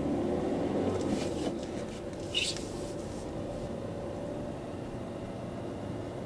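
Car driving slowly, about 30 km/h, heard from inside the cabin: a steady engine and tyre hum, with one brief click about two and a half seconds in.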